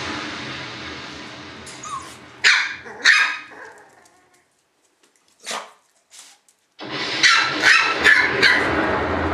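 Shiba Inu puppies barking and yipping in short, sharp calls: a couple a few seconds in, then a dense, loud run of yaps in the last couple of seconds.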